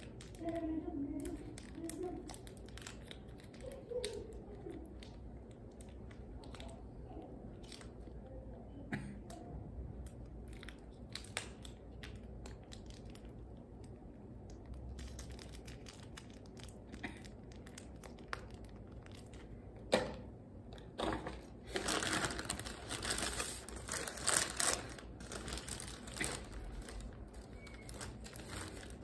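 Paper burger wrapper and plastic sauce sachets crinkling and tearing as they are handled, in scattered small clicks and rustles. The loudest stretch is a run of paper rustling about three-quarters of the way through.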